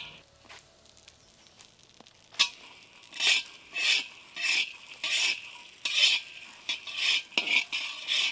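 Quiet at first, then from about two seconds in a spatula stirring and scraping groundnuts, cashews, coconut powder and poppy seeds as they roast in a pan. The strokes come quickly and evenly, about two a second.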